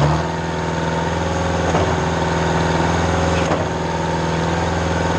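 Mayco trailer concrete pump's engine running steadily at raised speed with the pump switched to automatic, with a couple of faint knocks about two and three and a half seconds in.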